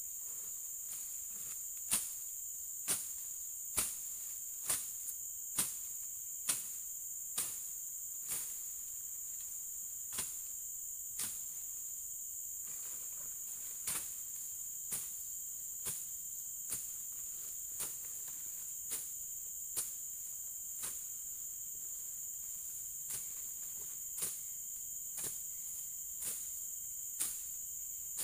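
Long-handled slashing blade swung by hand through grass and undergrowth, each stroke a sharp swish-chop, about one a second with a few short pauses. A steady high drone of insects runs underneath.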